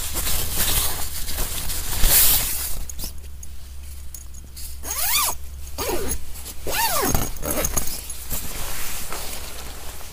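A zipper pulled in two long strokes, each rising and then falling in pitch, after a few seconds of rustling.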